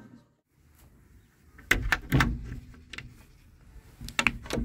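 A plywood door and its small metal slide bolt being worked by hand, clacking and knocking: a cluster of sharp knocks about a second and a half in, and another near the end.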